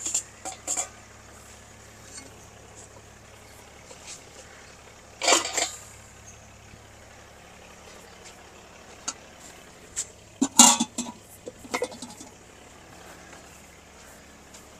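Aluminium cooking pots and utensils clinking and clattering as they are picked up and set down, with sharp clatters just after the start, about five seconds in, and a cluster around ten to twelve seconds in. A steady low hum from a flour mill runs underneath.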